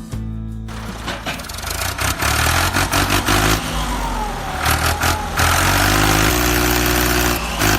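An engine running and revving; the noise rises and falls, louder twice.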